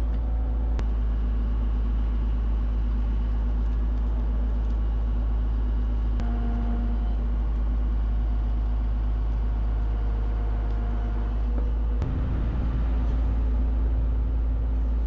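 Heavy equipment engine running steadily with a deep drone, its tone shifting abruptly a couple of times.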